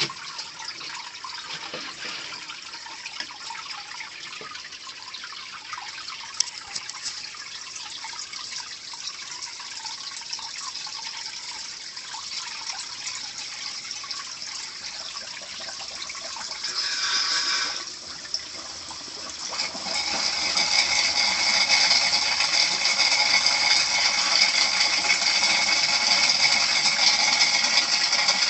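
Water from an aquaponics loop-siphon drain pipe running into a sump tank: a light steady trickle at first, a short gurgle about 17 seconds in as the siphon catches, then a loud steady gush of full siphon flow from about 20 seconds on.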